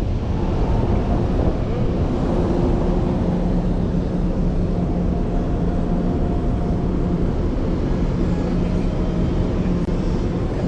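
Steady low rumble with a constant hum running under it, with no break or change.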